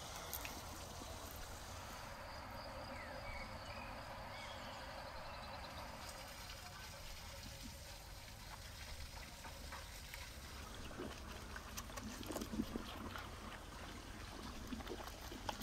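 Steady rush of running stream water, with a few faint bird chirps a few seconds in. In the second half, a goat munches watermelon in short, irregular bites.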